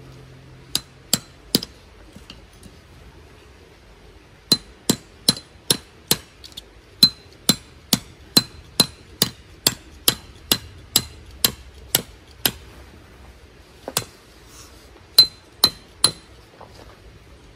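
Hammer driving a tent peg into gravel ground: sharp strikes with a short metallic ring. Three blows come first, then after a pause a steady run of about two to three blows a second for some eight seconds, then a few more near the end.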